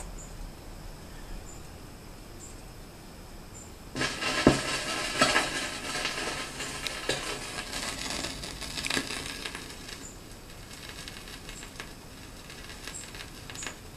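Stylus of a vintage Newcomb 1625M tube record player setting down on a heavily played LP about four seconds in, with a sharp click, followed by the crackle and pops of worn vinyl surface noise through the amplifier and speaker. The crackle is heaviest for the first few seconds and then eases.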